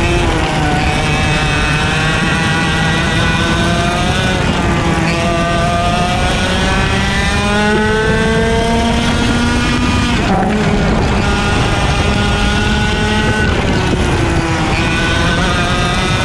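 IAME X30 125cc two-stroke kart engines at racing speed, heard onboard: the kart's own engine climbs steadily in pitch along the straights and drops sharply about ten seconds in before climbing again, with the engines of other karts running close ahead mixed in.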